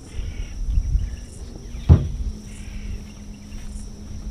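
Handling noise from a telescopic lure retriever pole as it is extended: a low rumble, then one sharp knock about two seconds in. A low steady hum sets in just after the knock, and birds call faintly.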